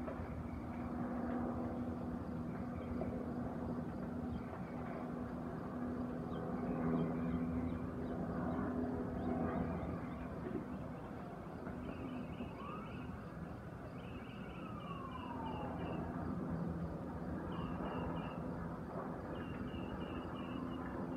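A distant emergency siren wailing, rising and falling about halfway through, over a steady rushing noise and low hum from the direction of a large fire. Short high chirps come in quick runs in the second half.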